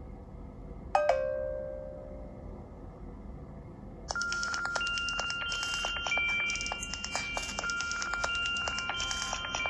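Built-in Windows Phone 8 ringtones playing on a Nokia Lumia 1520. About a second in, a single bell-like chime strikes and fades. From about four seconds, the next ringtone starts: a busy melody of bright tinkling chime notes over quick, light ticks.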